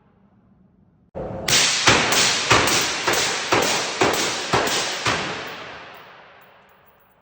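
Rapid string of about ten suppressed gunshots through a CGS SCI-Six suppressor, roughly two a second, starting about a second in and ending about five seconds in, followed by a long echo dying away.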